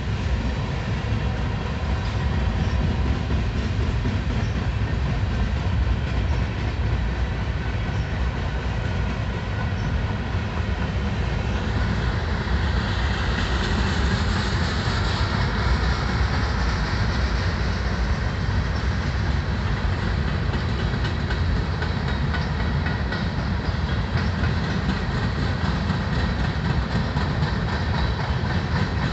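Freight train cars rolling past, with a steady low rumble of steel wheels on the rails. A higher hiss swells up in the middle and then eases off.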